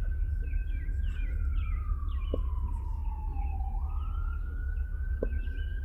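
An emergency-vehicle siren wailing, its pitch gliding slowly up and down over a steady low rumble.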